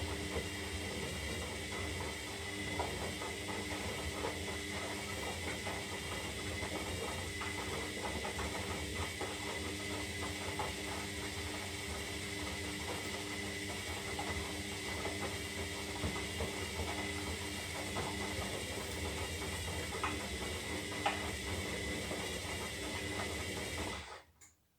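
Zanussi Lindo 300 washing machine running on its synthetic cycle: a steady motor hum and whine over a hiss, with scattered light clicks. It cuts off abruptly near the end.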